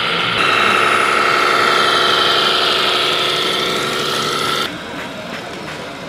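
Radio-controlled scale MAN truck running: a steady, engine-like sound with a high whine. It gets louder about half a second in and cuts off abruptly near the end.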